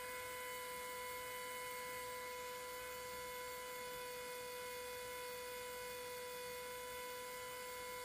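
Bohning cresting machine's small electric motor running steadily as it turns an arrow shaft, making an even, unchanging hum.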